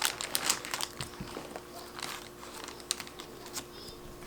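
Small packaging being handled and unwrapped: soft crinkling with irregular light clicks, slightly busier in the first second.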